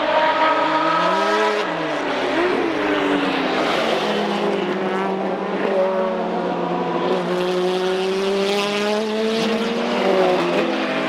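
Procar 4000 race cars' inline six-cylinder engines running at racing speed, several engine notes overlapping. One rises and drops about a second and a half in, and another climbs slowly through the second half.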